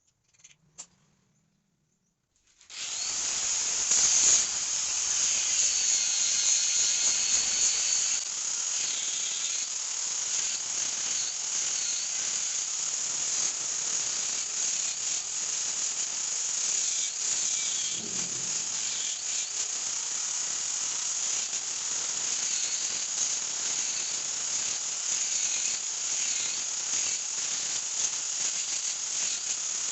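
A power tool grinding a steel blade: a steady hissing grind that starts about three seconds in and runs on without a break.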